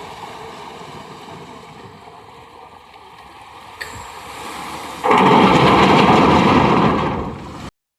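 Motorboat running under way, with wind noise; about five seconds in a much louder rush of wind or spray sets in, fades, and the sound cuts off suddenly.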